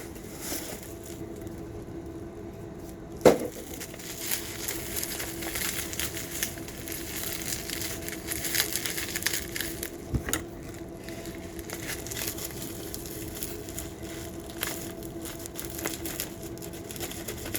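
A mail package being opened by hand: paper and packing crinkling and rustling in small irregular bursts. A sharp knock comes about three seconds in and a duller one about ten seconds in.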